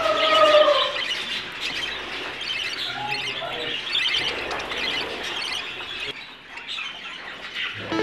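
Budgerigars chattering and warbling, a dense mix of chirps and squawks, with one louder falling call at the very start.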